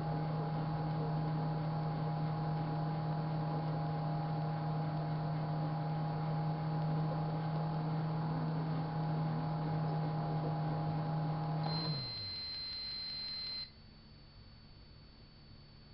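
Microwave oven running with a steady hum, then shutting off as its two-minute timer runs out: the hum winds down and the oven gives one long end-of-cycle beep of about two seconds.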